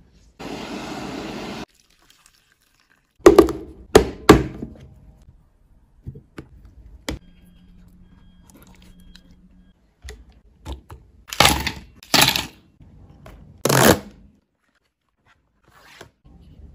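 Close-up food-prep handling sounds in short separate takes: a brief steady scrape near the start, a cluster of loud knocks and clicks, then three loud tearing noises as a cardboard box is opened.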